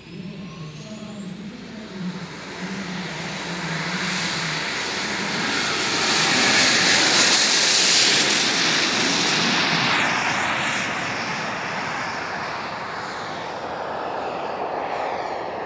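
A model jet turbine in a large RC F-104 Starfighter spools up with a high whine that rises over the first few seconds and then holds steady. The jet's rushing roar builds as the model races past on its take-off run, is loudest a little past the middle, and then fades as it climbs away.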